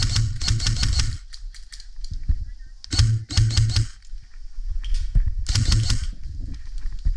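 Airsoft electric gun firing bursts on full auto, a rapid rattle of many shots a second over the whir of its gearbox. The first burst stops about a second in, another comes around three seconds in, and a short one follows near six seconds.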